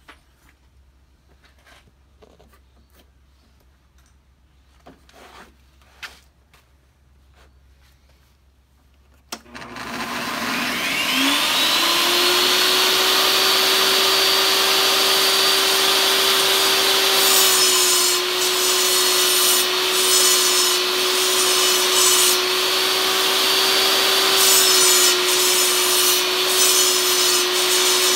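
A few light handling clicks, then a Ridgid portable table saw switches on about a third of the way in, its motor spinning up with a rising whine and settling into a steady run. Twice after that, 2x4 pieces held in a cutting jig are fed into the blade, adding a rough, hissing cut while the motor pitch dips slightly under the load.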